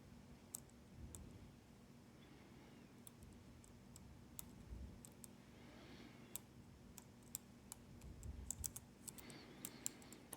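Faint, irregular metallic clicks and ticks of a pick working the pins of a Sargent Keso 12-pin dimple lock under tension, coming more often near the end.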